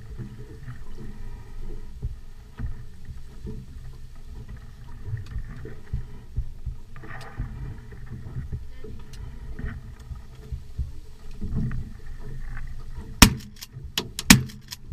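Shotgun shots near the end: two loud reports about a second apart, with fainter cracks between them. Before the shots there is only a low, uneven rumble.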